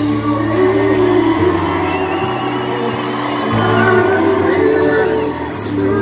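Live R&B band with a lead singer, heard from the audience seats of an arena. A bass line moves in held notes, changing about once a second, under the singer's wavering vocal line.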